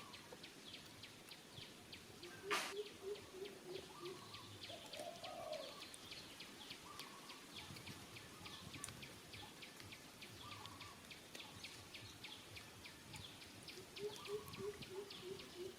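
Faint outdoor ambience of birds calling: a steady run of high chirps about three a second, short calls every second or two, and twice a quick series of low notes. A sharp click sounds about two and a half seconds in.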